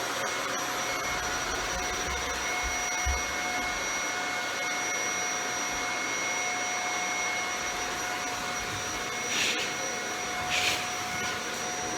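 Shark Powered Lift-Away Rotator upright vacuum running steadily on a hardwood floor: a constant motor whine over the rush of air, with two brief hissing surges near the end.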